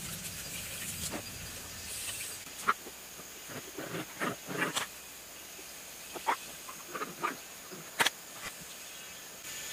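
Burnt copper winding wire from a self-priming pump motor being pulled out and handled: scattered short clicks and crackles, the sharpest about a third of the way in and near the end, over a steady high hiss.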